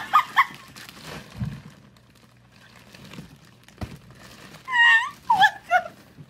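A young woman's high-pitched laughing squeals, briefly at the start and again about five seconds in, over the crinkle of a plastic bag being handled. A dull thunk near four seconds in.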